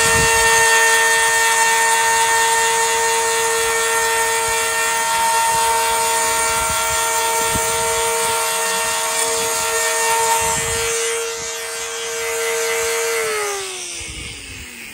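Compact trim router running at a steady whine as it bevels the edge of a foam core panel. About thirteen seconds in it is switched off and winds down, its pitch falling away.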